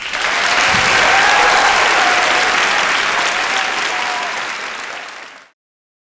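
Audience applauding, easing off after about four seconds and cutting off suddenly at about five and a half seconds.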